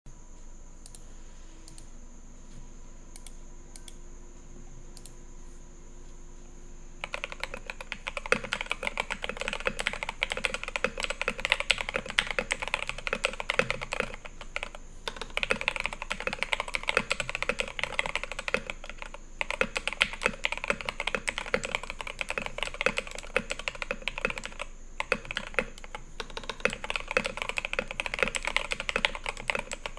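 Fast typing on a TM680 custom mechanical keyboard with lubed and filmed Alpaca V2 linear switches, an aluminium plate, tape and foam mods and XDA-profile keycaps. A dense run of keystrokes starts about seven seconds in and is broken by a few brief pauses.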